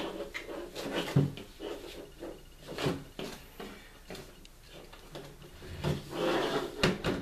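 Handling noise as a rifle sling is fitted to an air rifle's barrel: the strap rubbing and scraping, with a few sharp knocks and clicks of its fittings and the rifle against the tabletop, the loudest about a second in and near the end.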